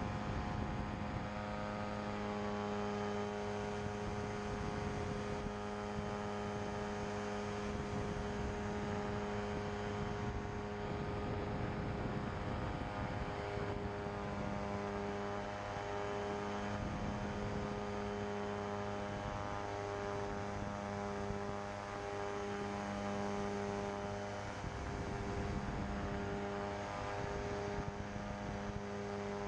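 Pterodactyl Ascender II ultralight's engine and propeller running with a steady drone. From about halfway, a low hum within it starts cutting in and out about once a second.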